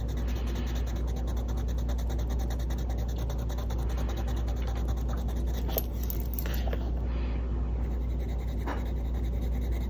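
A Caran d'Ache Luminance colored pencil shading on paper: a continuous fine scratching of quick back-and-forth strokes as a colour swatch is filled in, with a few sharper ticks. A steady low hum runs underneath.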